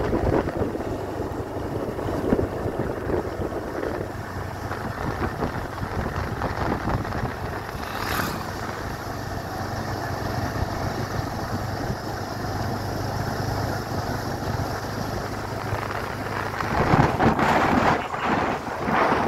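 Motorcycle engine running at a steady cruising speed with a low, even hum, and wind rushing over the microphone. The wind buffeting gets louder near the end.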